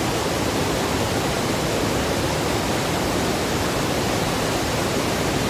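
Gullfoss waterfall: a steady, unbroken rush of heavy falling water.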